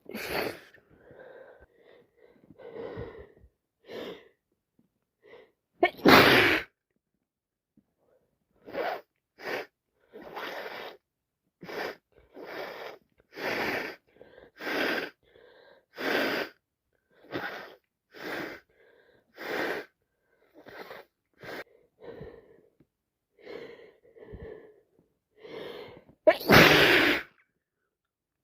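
A woman with a head cold sneezing: two loud sneezes, one about six seconds in and one near the end. Between them comes a long run of short, gasping breaths about once a second, the build-up to a sneeze.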